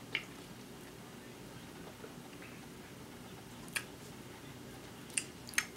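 Quiet room tone broken by four short, sharp mouth clicks and lip smacks: a sip from a drink can just after the start, then smacking while tasting the milk tea.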